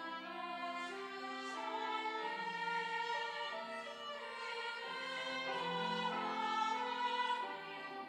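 Church choir anthem music: a violin playing a slow melody of long, held notes over accompaniment.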